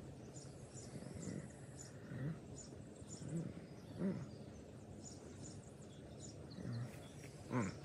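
Quiet outdoor ambience: faint high chirps repeat about twice a second, with a few short, low, voice-like sounds rising and falling in pitch.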